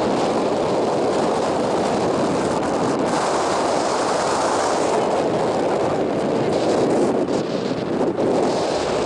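Loud, steady wind rush on the microphone from a moving car, an even roar with a few brief dips near the end.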